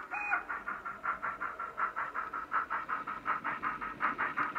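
Sound-fitted OO gauge LMS steam tank locomotive chuffing steadily at about five chuffs a second, louder near the end as it passes close by. A brief high tone sounds just after the start.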